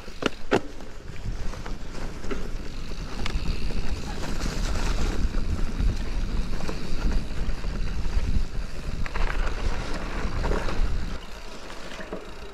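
Wind buffeting the microphone of a chest-mounted GoPro on a moving mountain bike, a heavy low rumble mixed with tyre and trail noise. Two sharp knocks come right at the start, and the rumble eases near the end.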